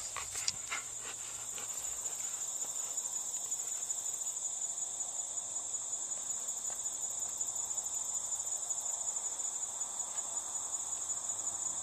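Steady, high-pitched insect chorus chirring without a break, with a few faint clicks in the first couple of seconds.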